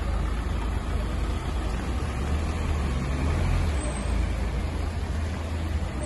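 Street traffic on a rain-soaked road: cars driving past, a steady hiss of tyres on wet asphalt over a low rumble.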